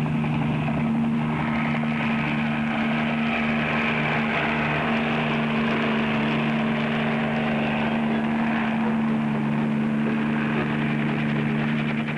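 A steady mechanical drone: two low humming tones under an even hiss, holding constant throughout with no breaks or changes in pitch.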